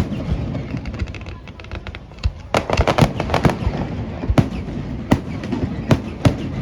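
Fireworks going off: sharp bangs of bursting shells, with a run of fast crackling about a second in and a dense volley of bangs around the middle, then single bangs about a second apart.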